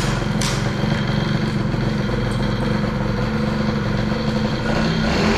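Two-stroke 50cc moped engine, fitted with a Polini kit and a BOOST cylinder head, catching on the kick at the start and then running steadily on the choke from a cold start.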